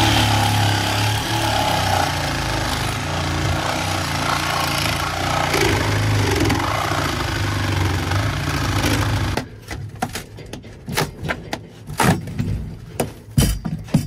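Cordless reciprocating saw running continuously as its blade cuts through a fiberglass boat hull, then cutting off abruptly about nine seconds in. A few irregular knocks and thumps follow.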